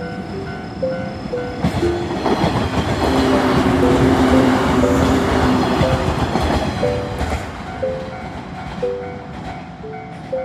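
A train passes over a level crossing. The rumble and clatter of its wheels on the rails build up about two seconds in, peak mid-way and fade near the end, while the crossing's warning bell rings steadily.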